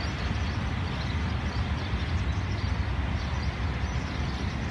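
Steady low rumble with a hiss from the HGMU-30R diesel-electric locomotive hauling the Mehran Express as it approaches from a distance.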